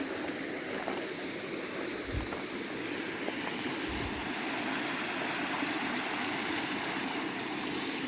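Steady rush of river water flowing over rocks, with two soft low thumps about two and four seconds in.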